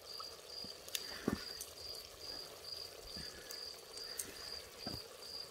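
Faint cricket chirping steadily, one high note about two to three times a second, with a few soft clicks and taps.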